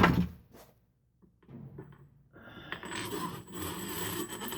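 Scraping and rustling handling sounds, with a few clicks, growing louder over the last two seconds as the motorcycle fork spring is picked up and fitted.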